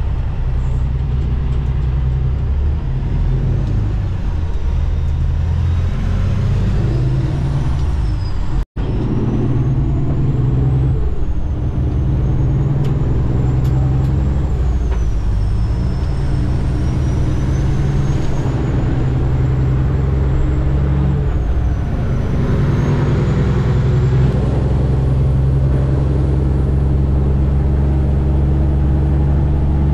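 Kenworth W900 tractor's Cummins ISX diesel engine running on the road, a steady low drone whose pitch shifts in steps with load and gear. A faint high whine rises and falls above it. The sound cuts out for an instant about nine seconds in.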